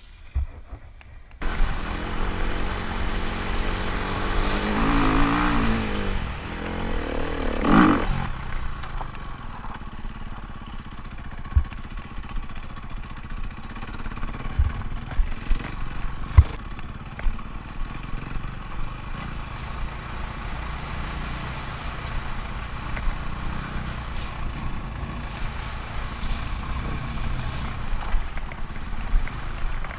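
Dirt bike engine heard from the rider's helmet camera: it starts up about a second and a half in, revs up and down through the gears with a peak near eight seconds, then runs steadily as the bike crosses rough dirt, with a few sharp knocks along the way.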